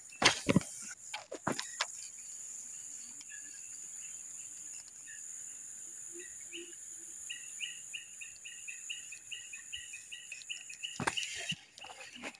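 Steady high-pitched drone of insects in swampy bush, with a faint animal call repeated in a quick series of short notes, about three a second, from about seven seconds in. A few handling knocks come near the start and near the end.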